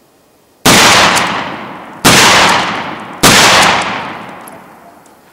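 Three 12-gauge shotgun shots, each firing a 1¼-ounce load of No. 4 lead birdshot, a little over a second apart. Each loud blast dies away slowly in a long echo.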